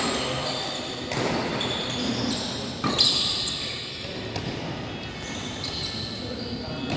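Badminton rally in a sports hall: rackets hitting the shuttlecock with sharp cracks about a second and three seconds in, the second louder, over the hall's echoing background.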